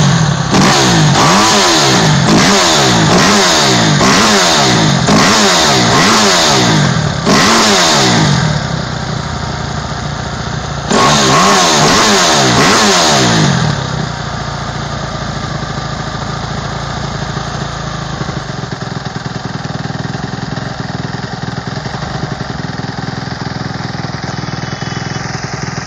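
2008 Kawasaki KX250F's single-cylinder four-stroke engine revved in quick blips about once a second, then given one longer rev about eleven seconds in, then idling steadily, running after an engine overhaul.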